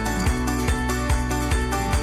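Background music with a steady beat, a little over two beats a second, under melodic notes.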